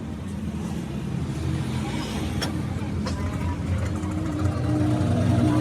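Heavy truck engine running with a low rumble that grows steadily louder, with a few sharp clicks over it.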